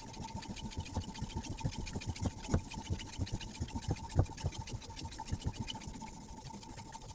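A sharpening stone on a Hapstone RS guided sharpening system stroked quickly back and forth along a carbon steel knife blade, a fast even scraping rhythm. Two louder knocks come through partway in.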